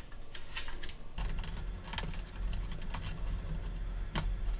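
Hands working small parts, a run of light clicks and rattles, with two sharper clicks about two and four seconds in: cable connectors being plugged into the laser engraver's frame during assembly. A low rumble of handling sits beneath from about a second in.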